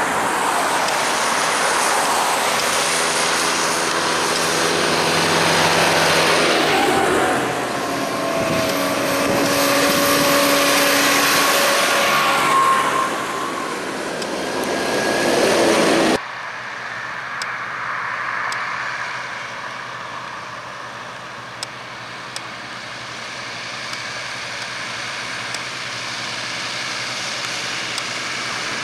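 Tractors and cars passing close on a road, engines and tyres loud, with the pitch falling as vehicles go by. About halfway through it cuts abruptly to a quieter, steady engine sound of a line of vintage tractors approaching.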